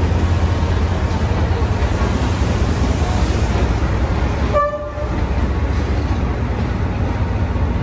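Vietnam Railways D19E diesel-electric locomotive and its coaches rolling slowly past the platform, a steady loud low rumble, with a short horn toot about halfway through.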